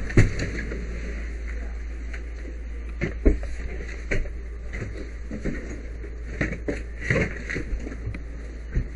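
Scattered, irregular knocks and clunks over a steady low hum.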